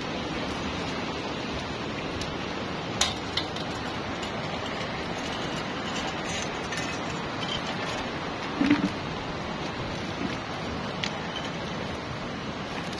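A cast net being handled and shaken out over a bucket: a few sharp clicks and light rattles from the net, with a short louder bump about two-thirds of the way through, over a steady hiss.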